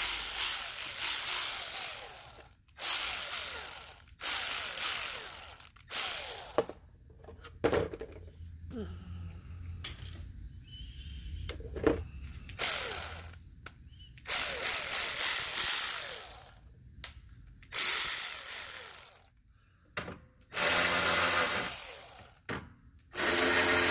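Cordless 1/4-inch electric ratchet run in about nine short bursts of one to two seconds each, with pauses between, as it spins fasteners in an engine bay. The last burst carries a pitched whine.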